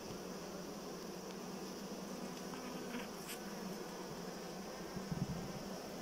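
Honey bees buzzing over an open hive's frames, a steady hum, with a short click about three seconds in and a brief low bump about five seconds in.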